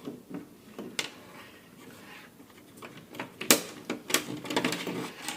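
Irregular clicks, taps and rattles of hands handling wiring and a wall-outlet fitting, with the sharpest click about three and a half seconds in and a busier run of clicking after it.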